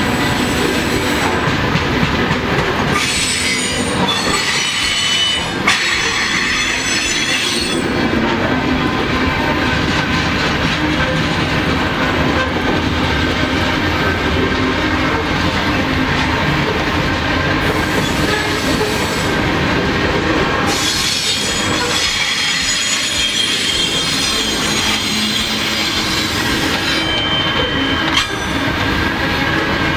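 A freight train of covered hopper cars rolls steadily past, its wheels rumbling on the rails. High-pitched wheel squeal rises over the rumble twice: from about three to seven seconds in, and again from about twenty-one to twenty-eight seconds in.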